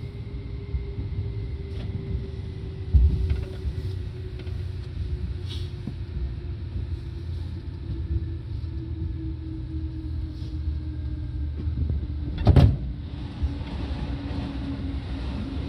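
Seibu 2000 series electric train running, a steady low rumble of wheels on rails with a faint motor whine that slowly falls in pitch as the train slows. Two sharp knocks cut through, one about three seconds in and a louder one about twelve seconds in.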